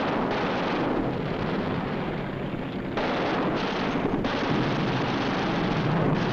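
Air-battle sound effects on an old wartime film soundtrack: a dense, steady roar of aircraft engines mixed with rumbling gunfire. It dips slightly, then cuts back in abruptly about three seconds in.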